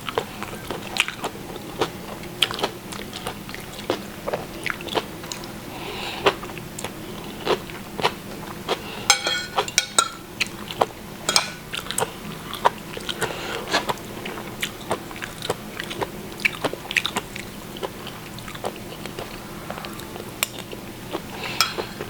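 Close-miked chewing: a person eating a mushroom basil stir-fry, with irregular wet mouth clicks and soft crunches.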